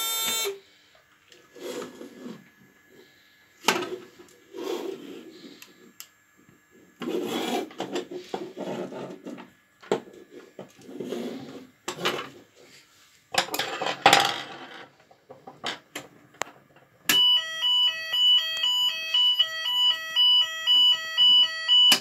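A fire alarm system's electronic sounder gives a loud pulsing two-tone alarm, about two pulses a second, for roughly the last five seconds, then cuts off suddenly. Before it come scattered knocks and rustling from handling a break-glass call point. A steady alarm tone stops just after the start, when the panel's reset button is pressed.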